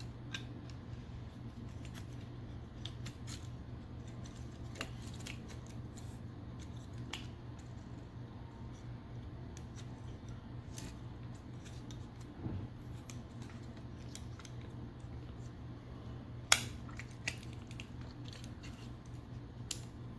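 Small plastic clicks and snaps from a Transformers Optimus Primal action figure being handled while its blasters are worked out from the sides of the body. The sharpest click comes about 16 seconds in, all over a steady low hum.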